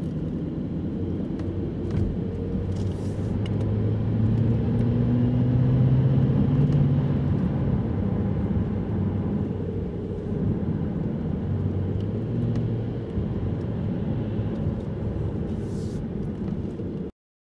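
Audi A8 driving at night, heard from inside the cabin: a steady low rumble of engine and tyres on the road. The engine hum swells louder in the middle, eases, then builds again, and the sound cuts off suddenly near the end.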